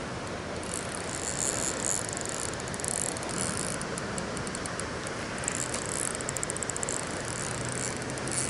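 Fishing reel clicking rapidly and evenly, with several louder spells.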